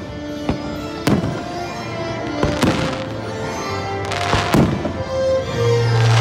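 Fireworks shells bursting over the show's music: about half a dozen sharp bangs at irregular gaps, some followed by crackling.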